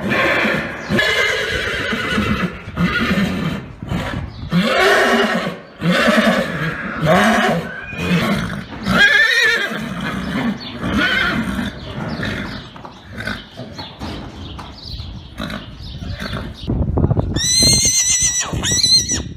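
Horses neighing: a run of shorter, lower calls, then a long high-pitched whinny with a wavering pitch near the end.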